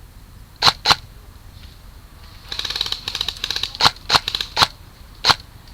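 Airsoft guns firing: a pair of sharp shots, then a rapid burst of fire, then several single shots spaced irregularly.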